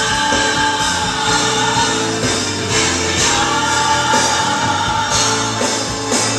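Recorded gospel song playing loudly, with singing and a choir.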